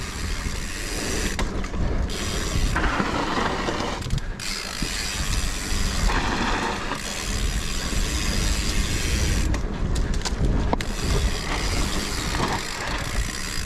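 Mountain bike descending rough forest singletrack: the rear hub's freewheel ratchet buzzing as it coasts, over a constant rattle of the bike bouncing across roots and bumps.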